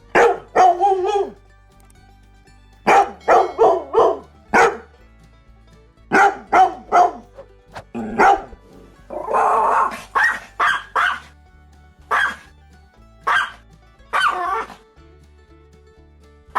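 Dog barking in short runs of two to four barks with pauses between them, over quiet background music.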